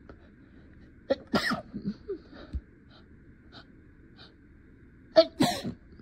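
A person sneezing twice, about four seconds apart, each a sharp burst with the second the loudest, and a few short, quieter sounds between them.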